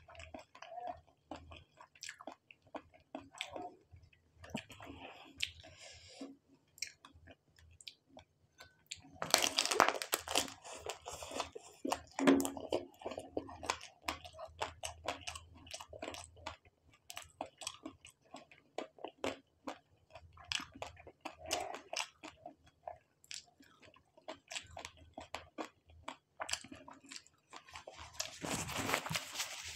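Close-miked chewing of fried prawn and noodles: a dense run of small mouth clicks, with louder crunchy biting about a third of the way in and again near the end.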